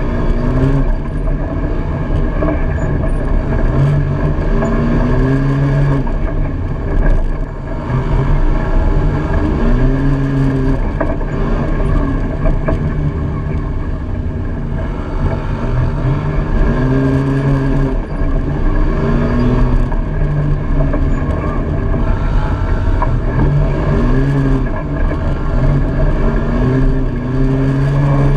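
Side-by-side UTV's engine running hard as it is driven along a dirt trail, its pitch rising and falling again and again as the throttle is opened and eased, heard from inside the cab with steady road and wind noise beneath.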